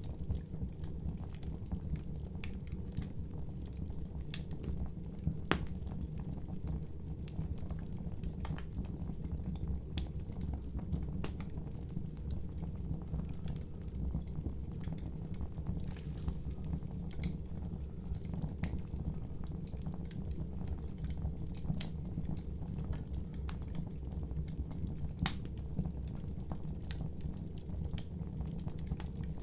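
Campfire burning with a steady low rumble and frequent irregular crackles and pops.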